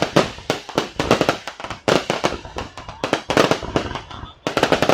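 Aerial fireworks going off in a rapid, continuous barrage: many sharp bangs a second, each with a short echoing tail.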